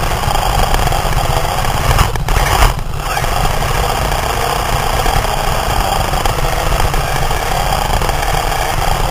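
Radio-controlled drift car heard from a camera mounted on its chassis: the motor and drivetrain whine, rising and falling in pitch with the throttle, over a steady rumble of chassis vibration and tyres on the floor.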